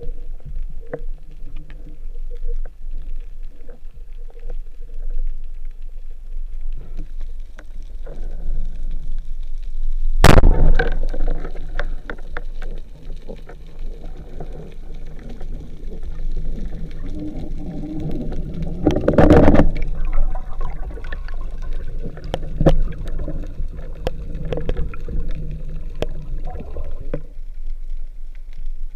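Underwater sound heard through a camera housing: a steady low rumble with scattered clicks and crackles, and two louder noises about ten and nineteen seconds in.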